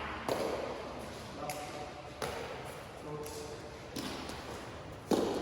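Feathered shuttlecock being kicked back and forth in a rally of traditional đá cầu: a run of about five sharp thuds at uneven intervals, the loudest a little after the start and near the end.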